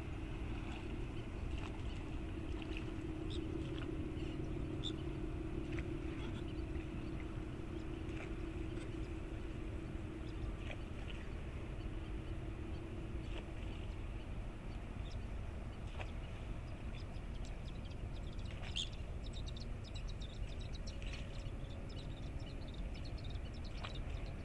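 Steady low rumble of a large ship under way, with a droning hum that fades out about halfway through. Scattered short bird chirps sound over it.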